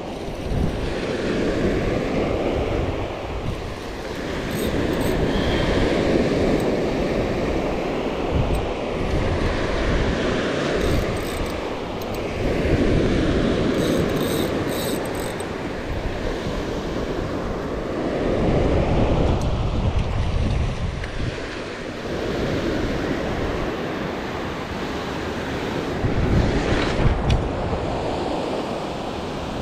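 Ocean surf breaking and washing up the beach in repeated swells, with wind buffeting the microphone.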